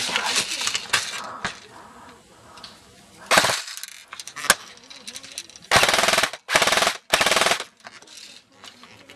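Airsoft rifle firing on full auto, a fast rattling burst. There is one short burst about three seconds in, a single sharp click a second later, and then three longer bursts back to back about six seconds in.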